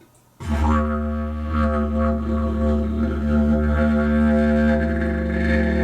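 A didgeridoo starts a steady low drone about half a second in, rich in overtones. About three seconds in the upper overtones grow stronger, as the player's voice is sung into the drone at roughly the same pitch.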